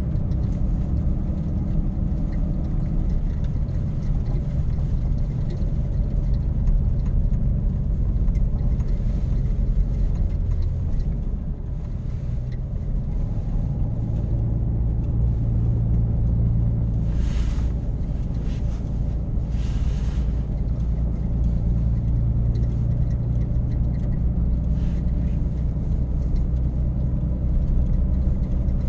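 Truck engine running with a steady low rumble, its pitch shifting a few times. Two short hissing swishes come about two-thirds of the way through.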